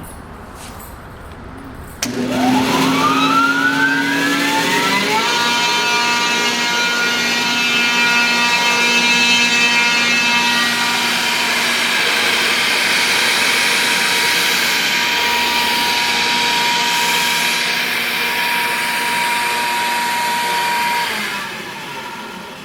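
RedMax 30 hp rotary screw air compressor starting up: it kicks on suddenly with a whine that rises in pitch over about three seconds as it spins up, then runs with a steady high whine and hum, falling away near the end.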